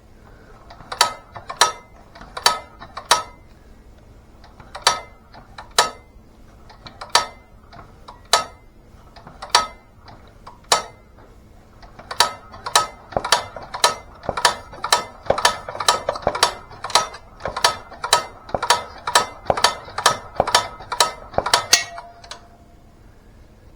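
International Harvester LB engine being turned over, giving a series of sharp metallic clicks with a brief ring. They come about one a second at first, then about three a second from about halfway, and stop shortly before the end.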